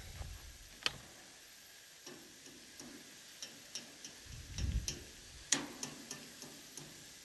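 Eggs and sausages frying in a pan: scattered crackles and pops of hot fat, with a few sharper clicks as a utensil works at the eggs in the pan. A brief low rumble comes about two-thirds of the way through.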